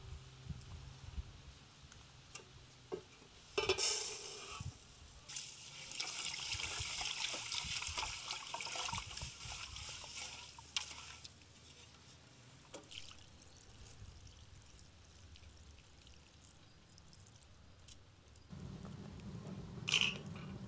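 Water poured from a jug into an aluminium pot of rice, starting suddenly a few seconds in, followed by the sloshing and swishing of the rice being rinsed by hand. Near the end a low steady wood-fire sound comes in, and a sharp metal clank follows as the pot is set on the grill.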